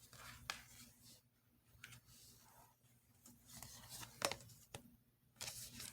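Faint rustling of cards being handled, with a few light taps and clicks, as the next tarot card is drawn.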